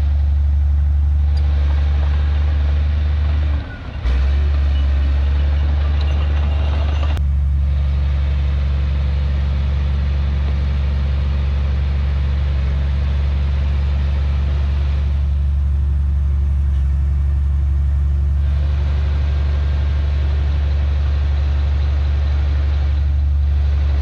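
Heavy diesel engine of earthmoving equipment running steadily with a low, even hum, dropping out briefly a little under four seconds in.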